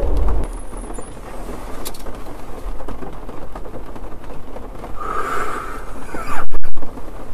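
Steady road noise inside a moving car, with a brief higher tone about five seconds in and a short, very loud distorted burst near the end.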